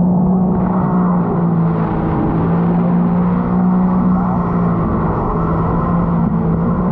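Sea-Doo personal watercraft engine running at cruising speed, its hum stepping slightly up and down in pitch several times as the throttle shifts, over a steady rush of wind and water noise.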